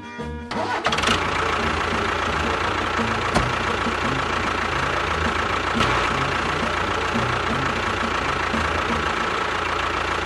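A motor running steadily with a constant high whine, starting about a second in as music cuts off.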